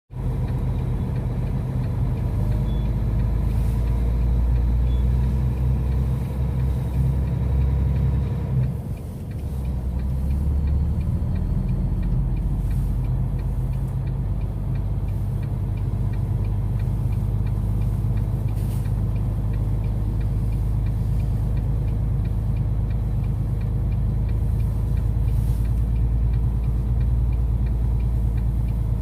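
Truck engine running steadily with a deep rumble, with a brief drop in level and a change in engine pitch about nine seconds in.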